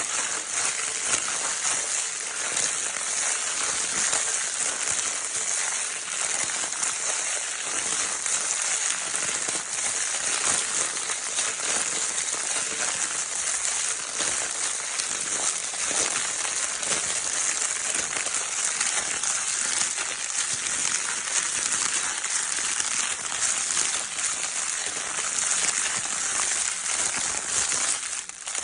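Crinkle paper of a baby's crinkle toy being crinkled without pause: a steady, dense, hissing crackle, dipping briefly at the very end.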